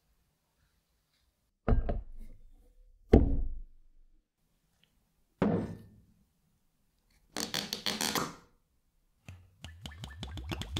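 Three separate hollow thunks of a plastic tub and a glass bottle being set down on a wooden workbench, the middle one the loudest, then a brief rustle. Near the end iron(III) chloride solution starts pouring from the glass bottle onto the steel cleaver blade in the plastic tub.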